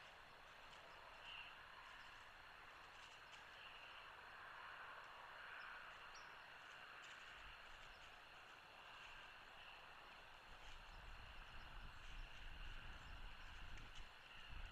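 Near silence: faint outdoor ambience on a nest-camera microphone, with a low rumble that comes in about halfway and grows toward the end.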